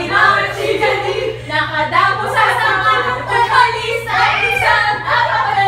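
Several voices singing loosely together in a group, a chanted action song, over a steady low hum.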